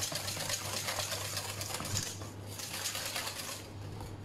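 Wire balloon whisk beating a thick cheesecake batter in a stainless-steel bowl: a rapid clicking rattle of the wires against the metal. It breaks off briefly a little past halfway, resumes, and goes softer near the end.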